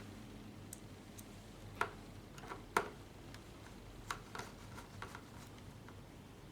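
Irregular small clicks and taps from laptop parts and tools being handled, about a dozen in all, the sharpest about two and three seconds in. A faint steady hum runs underneath.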